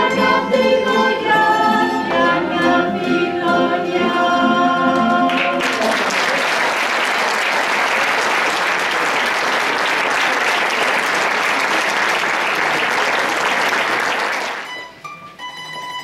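A choir singing a Christmas carol over a band of plucked guitars and lutes, ending about five seconds in. Audience applause follows for about nine seconds and dies away, with a few faint plucked string notes near the end.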